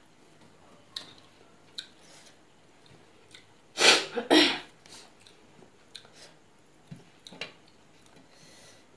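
A person sneezing twice in quick succession, about four seconds in. Around it, scattered faint clicks of fingers and food on a steel plate.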